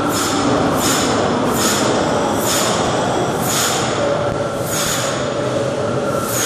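Natural gas compressor station blowing down during an emergency shutdown: a loud, steady rush of gas venting. Hissing surges come about once a second and space out toward the end.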